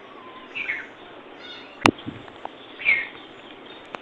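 A bird chirping twice, short falling chirps over a steady hiss, with a sharp click a little under two seconds in.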